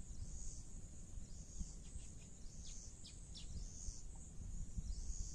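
Rural field ambience: a steady high insect drone with a run of short, falling bird chirps about two seconds in, over a low rumble of wind on the microphone.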